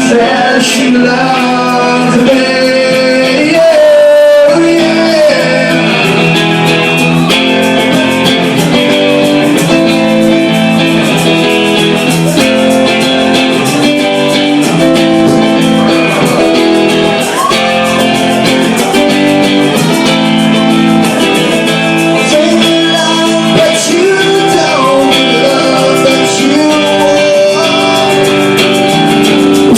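Rock band music: a guitar-led instrumental passage over a steady beat, with some bent notes, and no sung words clearly heard.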